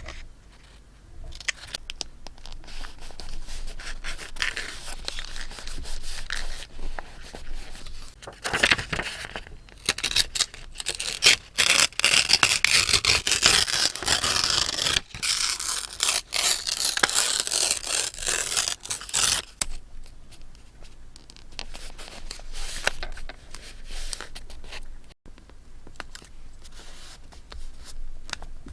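Close-up paper sounds from scrapbooking: paper being handled, scraped and rustled, busier and louder for about ten seconds in the middle.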